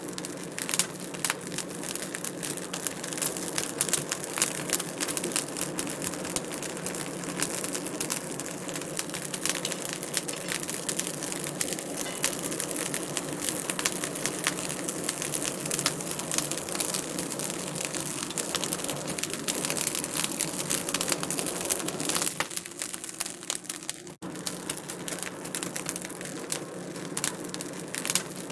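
Wood fire crackling in a fireplace: a dense, continuous run of small crackles and pops, with a momentary dip in level about three-quarters of the way through.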